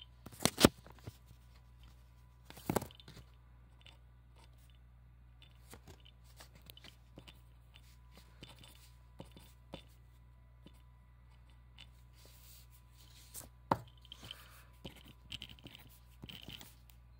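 Writing by hand on paper: faint scratching strokes and small ticks, broken by a few sharp knocks, the loudest about half a second in, others near three seconds and near fourteen seconds.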